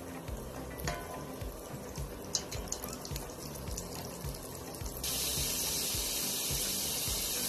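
Flour-coated chicken pieces deep-frying in hot oil, a steady hiss of sizzling that jumps suddenly louder about five seconds in, over background music.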